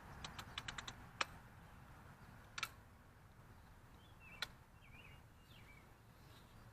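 Daisy Red Ryder BB gun being handled and worked: a quick run of light clicks, then sharp single clicks about a second in, a doubled click about two and a half seconds in, and another about four and a half seconds in.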